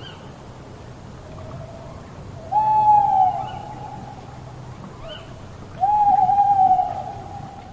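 An owl hooting: two loud, drawn-out hoots of about a second each, one a little over two seconds in and one near six seconds, each sliding down at its end, with fainter hoots between them.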